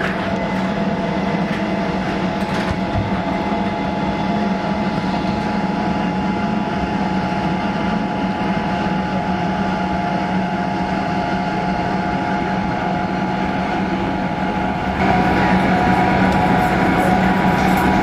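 Steady road and engine drone of a moving car, heard from inside the cabin, with a low hum running through it; it gets louder about fifteen seconds in.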